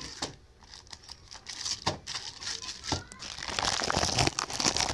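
Plastic courier pouch crinkling and rustling with sharp crackles as it is handled and torn open by hand, busiest in the last second and a half.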